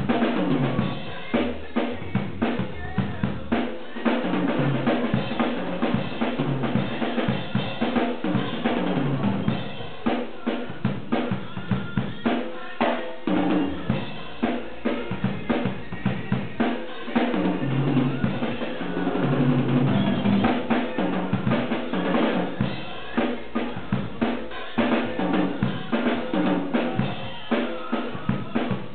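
Acoustic drum kit played in a steady, busy groove of kick drum, snare and cymbals, with recorded backing music underneath.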